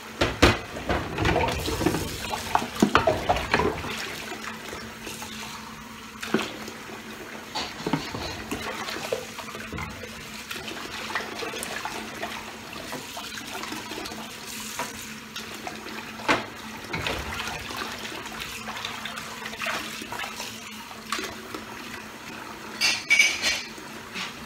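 Kitchen tap running into the sink while glasses and dishes are washed by hand, with scattered clinks and knocks of glass and crockery; the clatter is busiest in the first few seconds, with another sharp clink near the end.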